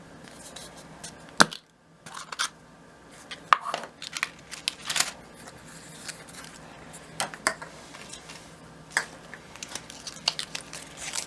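Plastic packaging of a tiny brick-building set being handled and torn open: irregular crinkling and rustling with scattered sharp clicks.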